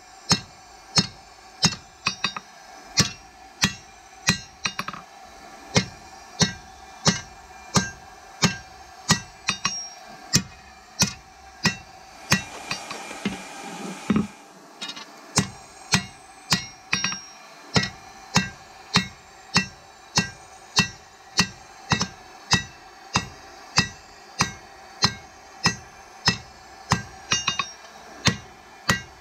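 Hand hammer striking a red-hot sword blade on an anvil, forging the steel, about two ringing blows a second. There is a short pause about halfway through.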